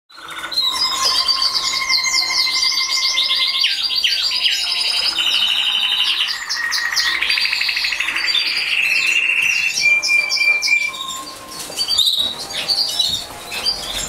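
Canaries singing: long rolling trills of fast repeated notes mixed with held whistled tones, the song changing pitch every second or two. It thins out about eleven seconds in.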